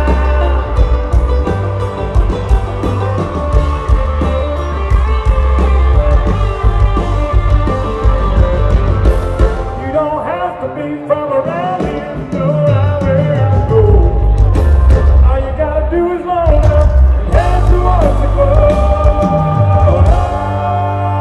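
Live country band playing at full volume, a male lead vocal singing over drums, bass and electric guitars. The low end thins out briefly about halfway through, then the full band comes back in.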